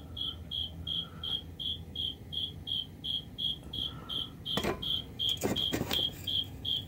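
A cricket chirping steadily, short high chirps at about three a second. A few brief knocks come about two-thirds of the way through.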